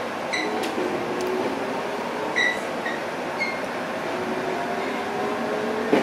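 701-series electric train running, its traction motors giving a steady hum with faint tones that slowly rise in pitch as it gathers speed. A few short high squeals and light clicks come through, mostly in the first half.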